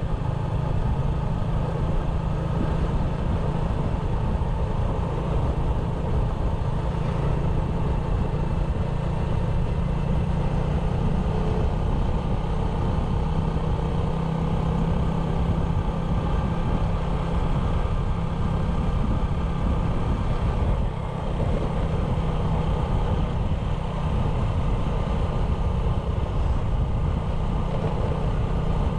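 A 97cc motorbike's small single-cylinder engine running steadily under way, with a brief dip in level about three-quarters of the way through.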